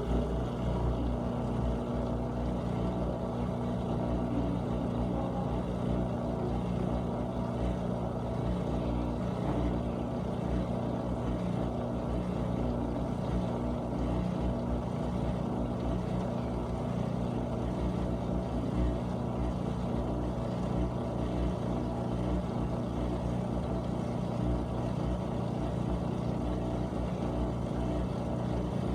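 GE dishwasher running its wash pump: a steady motor hum over a low rush of water being sprayed and churned inside the tub.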